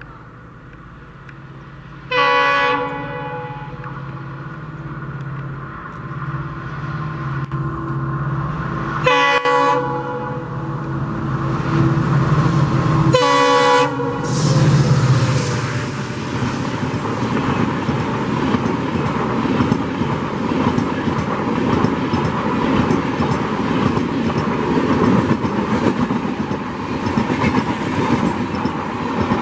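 A train sounds its horn in three short blasts, then passes with a steady, loud clatter of wheels on the rails.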